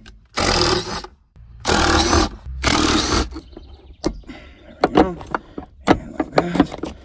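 A cordless power driver runs three times, each for under a second, backing out the 8 mm bolts that hold the airbag restraint control module. About halfway through come sharp plastic clicks and rustling as the module's wiring connectors are worked loose.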